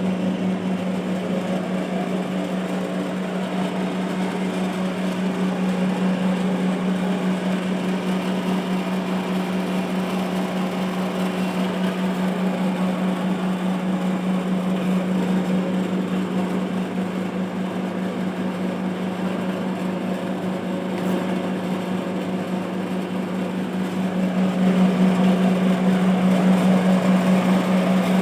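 Wood-fired steam boiler plant running: a steady machine drone with a strong low hum. It grows somewhat louder near the end.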